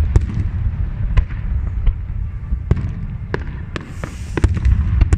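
Fireworks display: about nine sharp bangs at irregular intervals over a continuous low rumble, with a brief high hiss a little before four seconds in.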